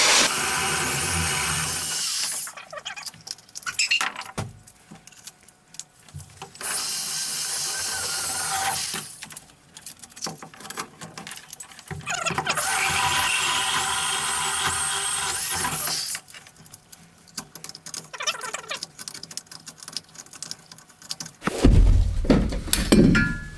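Right-angle corded drill with a hole saw boring through the plywood container floor, running in three bursts of a few seconds each with a squealing whine, separated by short pauses of crackling. A loud knocking bump comes near the end.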